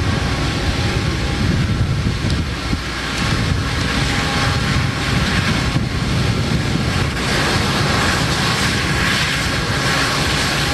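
Southern Pacific diesel-electric locomotives approaching at the head of a freight train, a steady engine rumble with a thin whine on top. It grows a little louder about two-thirds of the way through as the units come closer.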